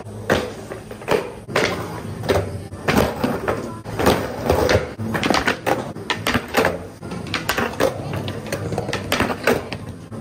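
Skateboard wheels rolling on concrete, broken by frequent sharp clacks and slaps as the board is popped, knocked against a curb and landed; background music plays underneath.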